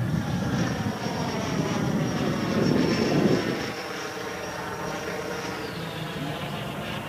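Electric ducted-fan RC jet (CModels M-346 with a Schübeler impeller) flying past overhead: a high, steady fan whine over a rushing blast, loudest about three seconds in. Near the end the whine slides down in pitch and the sound settles quieter.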